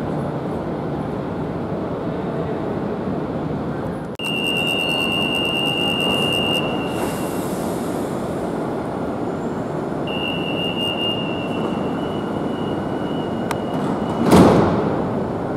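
Madrid Metro line 3 train in the station, with a steady rumble throughout. A high steady squeal sounds twice, each time for a couple of seconds. A short, loud burst of noise comes near the end.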